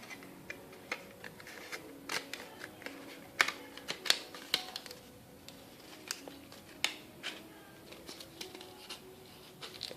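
A sneaker box and its wrapping paper being handled: scattered crinkles, taps and clicks, a couple of them louder between about three and four seconds in.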